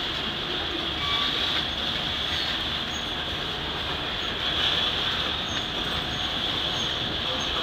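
Loaded grain hopper cars of a freight train rolling past: a steady rush of wheel and rail noise.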